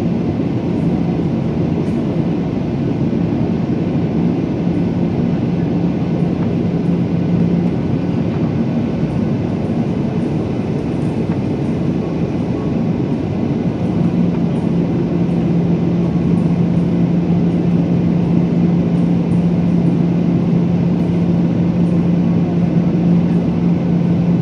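Cabin noise of a Boeing 737-800 on approach, heard from a window seat beside the wing: the CFM56-7B turbofan's steady drone and the rush of airflow. A low hum in the engine sound fades for a few seconds and comes back stronger about halfway through.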